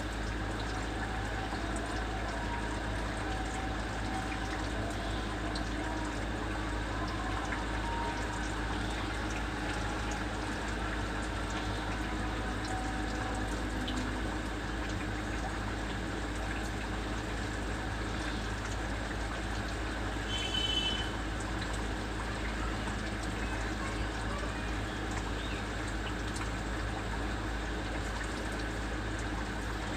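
Steady outdoor background noise with a low rumble, and one short, high-pitched chirp about two-thirds of the way through.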